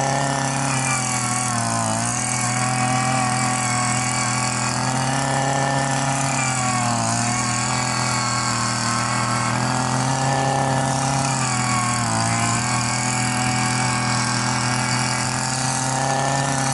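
An engine idling steadily nearby, its pitch sagging briefly about every five seconds.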